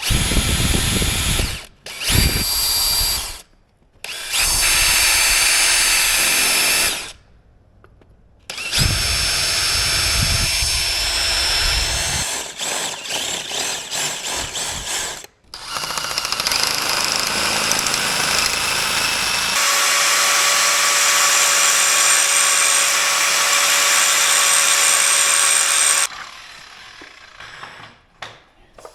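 Handheld power grinder grinding down a spot on a steel motorcycle brake rotor so that it will fit. It runs in repeated bursts of a few seconds, then one long run with a steady whine that cuts off a few seconds before the end.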